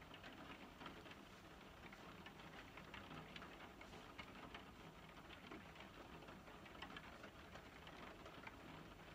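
Near silence: room tone with faint, irregular small ticks.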